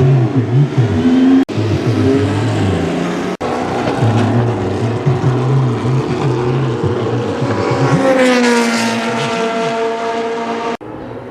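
Historic Formula 1 racing engines running at high revs as cars accelerate and pass, in several short clips joined by abrupt cuts. About eight seconds in, one car's engine note climbs sharply and then drops as it goes by.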